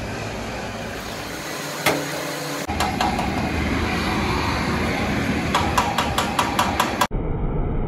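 Steady rushing noise of truck-radiator repair work over an open flame, with a quick run of about seven sharp taps near the end.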